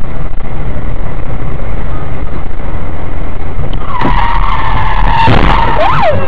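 Steady road and wind noise inside a car at highway speed, then about four seconds in tyres squeal hard in a skid as a car spins sideways across the road, the squeal wavering in pitch, with a sharp knock in the middle of it.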